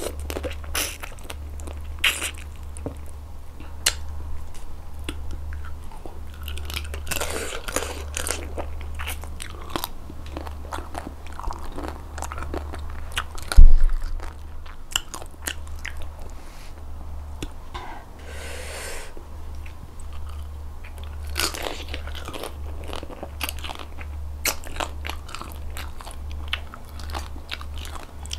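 Close-miked eating of raw blue swimming crab: crab shell crunching and cracking between the teeth, chewing, and wet sucking at the shell, over a low steady hum. A single loud thump comes about halfway through.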